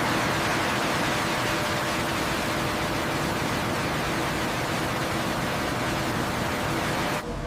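Steady hiss of factory machinery noise, with a faint hum underneath, that cuts off abruptly near the end.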